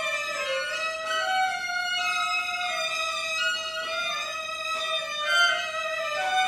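Violin and cello duet: the violin carries a slow melody of held notes with small slides between them, the cello bowing alongside.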